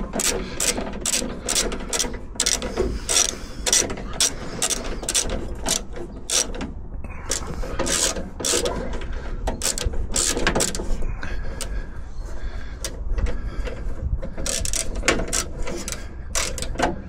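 Hand ratchet tool, likely a ratcheting screwdriver, clicking in quick, irregular runs with brief pauses while driving screws into the door's cover. The screw holes are stripped out.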